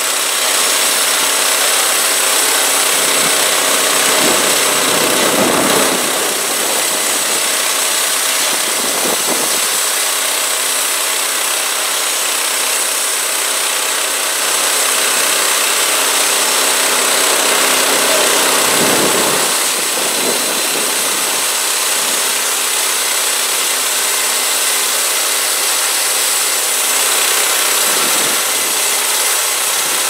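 Small gasoline engine of a portable bandsaw mill running steadily under load as the band blade cuts through a log, over a constant hiss. The engine note shifts briefly about six seconds in and again around nineteen seconds. The drive belts are slipping a little.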